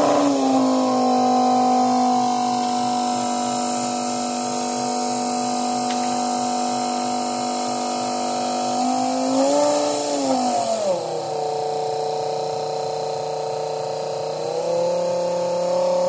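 Small brushed DC motor running off a variable bench power supply, a steady whine that drops lower in pitch about ten seconds in as the voltage knob is turned down, then rises again near the end as the voltage is turned back up.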